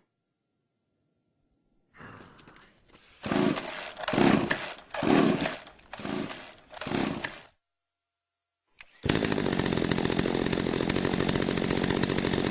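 Chainsaw: after a silence, about five short noisy bursts come a little under a second apart. After another pause and a click, the saw runs steadily and loudly from about nine seconds in.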